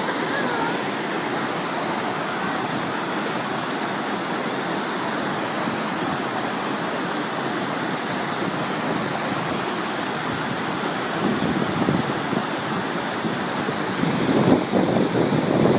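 Floodwater rushing past in a steady, even wash of noise. From about eleven seconds in, and louder near the end, irregular gusts of wind buffet the microphone.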